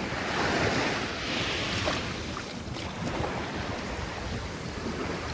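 Small waves washing onto the shore, one swelling in during the first two seconds, with wind on the microphone.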